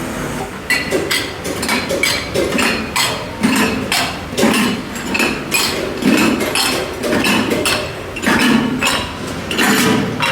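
Irregular series of hammer strikes and clinks on metal, several a second at times, over a continuous workshop din.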